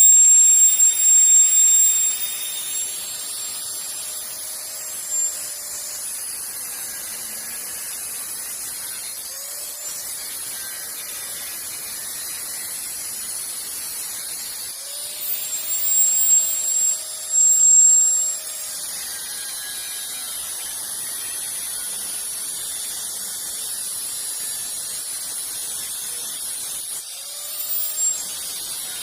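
A handheld power tool run in short bursts while scrapping a water heater. Its motor spins up, runs and winds down, loudest around the middle and again briefly near the end, over a steady high hiss.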